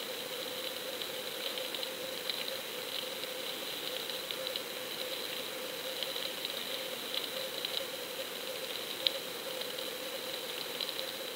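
Steady hum and whine with faint, irregular crackling ticks, as picked up by an underwater camera's housing lowered on a fishing line.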